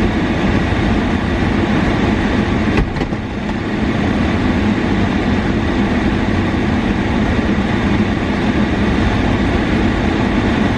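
Air conditioning blowing hard: a steady, loud rush of air with a low hum, broken by a click and a brief dip about three seconds in.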